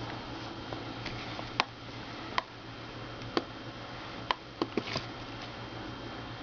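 Scattered sharp plastic clicks from computer keyboard keys, about eight at uneven spacing, as cleaning putty is pressed down into the gaps between them.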